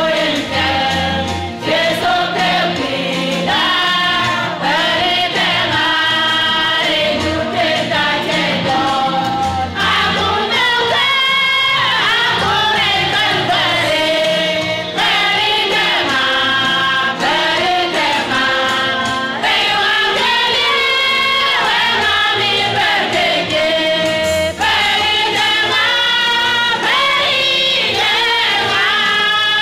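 Women's choir singing a gospel song together, in phrases with short breaths between them.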